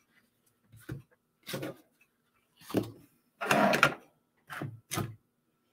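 Handling sounds of card-stock candy bar holders and a glue pen being set down and moved about on a craft mat: about six short knocks and rustles, the loudest a little past halfway.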